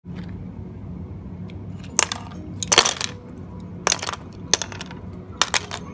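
Wooden toy train cars dropping and tumbling onto brick paving, clattering in about five quick bursts of hard wooden knocks over a steady low hum.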